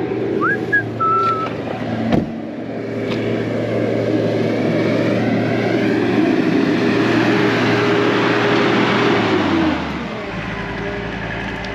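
John Deere skid steer's diesel engine running nearby under working throttle, growing louder through the middle, then dropping in pitch and easing down to idle about ten seconds in.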